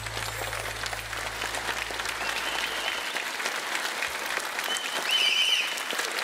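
Concert audience applauding at the end of a song, as the band's last low note fades out over the first few seconds. A couple of high wavering whistles rise over the clapping, about two seconds in and again near the end.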